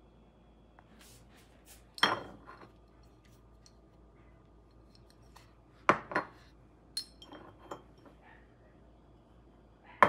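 Glass oil dispenser bottle knocking and clinking against a granite countertop as it is handled: one sharp knock about two seconds in with a faint ringing after it, two more knocks near six seconds, lighter clicks after them and another knock at the end.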